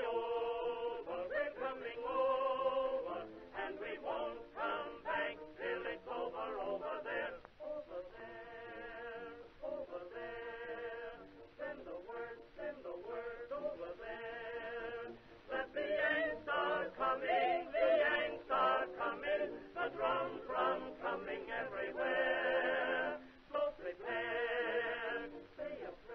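An old-sounding recording of a song: singing with a wavering vibrato over accompaniment, the sound thin, with no high treble.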